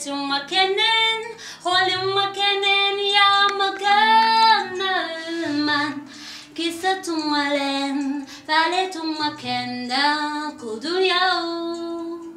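A lead singer's high voice singing long phrases with sliding, wavering pitch, broken by short breaths, over faint low backing notes.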